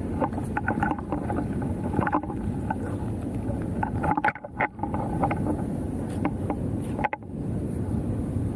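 Steady rushing of water pouring through a spillway, with a few knocks and rustles of the camera being handled about two and four seconds in and again near seven seconds.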